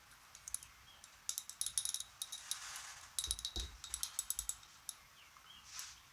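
Small glass bottle of thinned airbrush paint clicking and rattling in quick runs as the paint is mixed in it, the glass ringing briefly with each knock.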